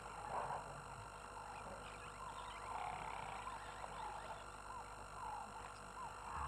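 Bush ambience through a webcam microphone: a chorus of short chirping calls from small wild animals, repeating irregularly about once or twice a second over a steady hiss and low hum.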